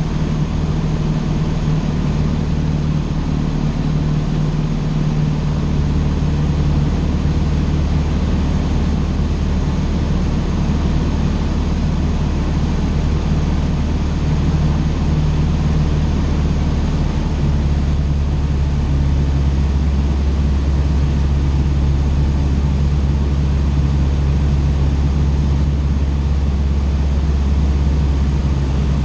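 Cessna 150's four-cylinder Continental O-200 engine and propeller running with a steady drone; the low hum shifts slightly in pitch about five seconds in and again a little past halfway.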